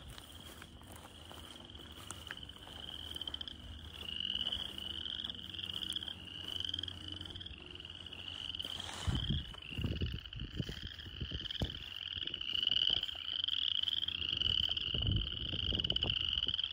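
A chorus of frogs calling in a marsh: many overlapping short, rising, pulsed trills, one after another, growing fuller a few seconds in. A few low thumps or buffets come around the middle and again later on.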